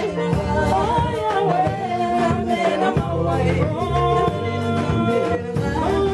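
Gospel music: a song with singing over a band, with a steady drum beat and bass.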